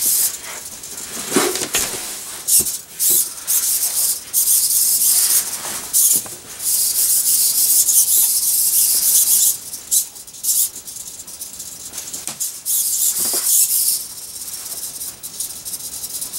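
Small hobby servo motors whirring in irregular bursts, from under a second to a few seconds long, as the robot turns its base and side sensors to track a nearby object. A few sharp clicks fall between the bursts.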